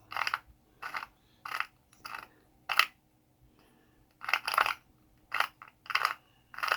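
Archer Arts Diamond Grinder being twisted by hand, the resin diamond painting drills inside rattling and crunching in short bursts with each turn, with a pause in the middle. The grinding is separating drills stuck together, and it is getting less crunchy as it goes.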